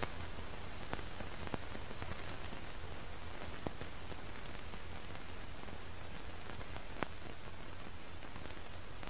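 Old-film soundtrack noise: a steady hiss with faint crackle over a low hum, broken by a few sharp pops.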